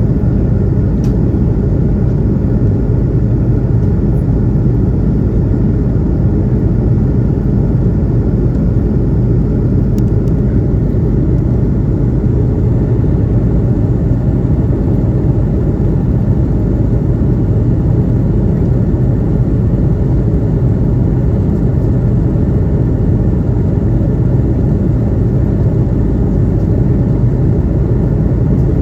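Steady cabin rumble of an Airbus A330-200 heard from inside the passenger cabin: jet engine and airflow noise with a low hum, unchanging throughout.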